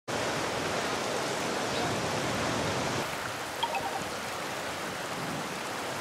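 Shallow river water flowing over stones, a steady even rush of water.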